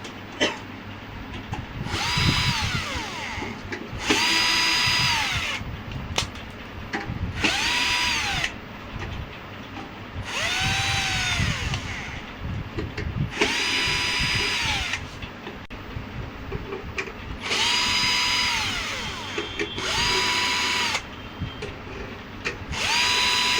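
A power drill-driver backing out the screws of an inverter's casing, in about eight short runs. Each run spins up quickly to a steady whine, holds for about a second, then winds down. Low clatter from handling comes between the runs.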